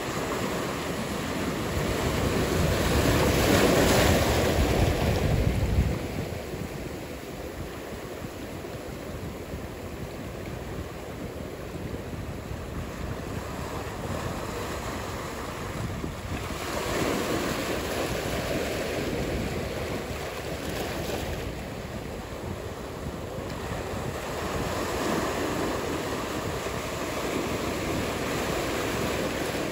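Ocean surf rushing and washing, mixed with wind noise on the microphone. It surges loudest in the first few seconds, falls off sharply about six seconds in, and swells again more gently around the middle.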